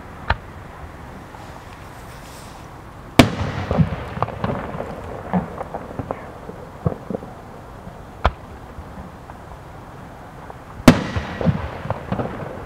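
Fireworks bursting. A sharp loud bang about three seconds in is followed by a few seconds of crackling. A single bang comes a little past the middle, and another loud bang near the end is again followed by crackling.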